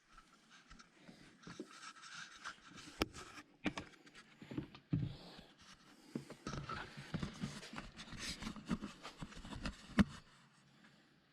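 Irregular clunks, scrapes and rustles of oil containers and a funnel being handled while fresh engine oil goes into a tractor, with one sharp knock near the end.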